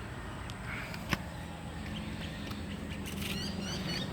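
Birds chirping in quick, repeated short calls starting about three seconds in, over a low steady background rumble, with one sharp click about a second in.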